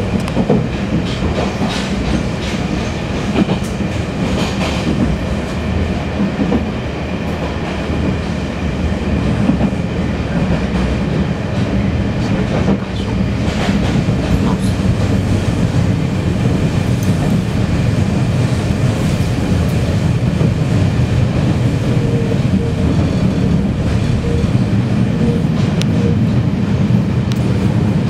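Taiwan Railways Fu-Hsing class passenger train heard from inside the coach while running: a steady rumble of wheels on rail with occasional clacks and rattles, growing a little louder after about ten seconds.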